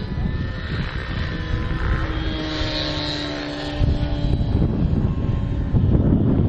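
Engine and propeller of a radio-controlled scale Zero fighter running in flight overhead, a steady drone whose pitch falls slightly as it passes. Wind buffets the microphone throughout.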